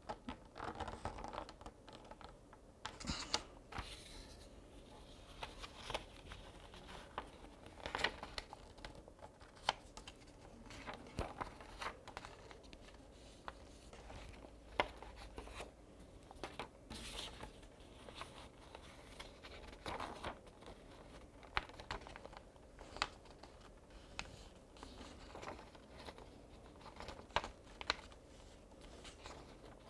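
Paper being folded and creased by hand to set a paper airplane's wing folds: faint, irregular rustling, scraping and crisp little snaps of the paper.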